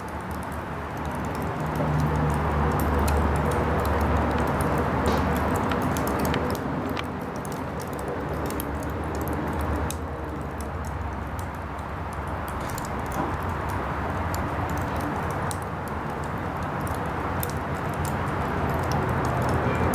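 Shattered tempered-glass table top, its broken pieces still cracking: many small, sharp, irregular clicks and ticks as stress keeps releasing in the fragments. A steady low background rumble runs beneath them.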